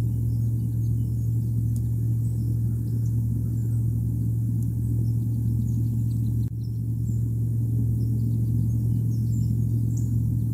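Steady low rumbling hum with faint, scattered high chirps or ticks above it; the sound drops out for an instant about six and a half seconds in.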